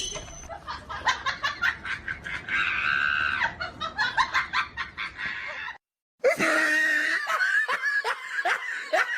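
Two laughing sound-effect clips back to back: the first is rapid, bursting laughter with a high, shrieking stretch about three seconds in. It cuts to silence for half a second, then a second laugh follows in quick, pitched bursts.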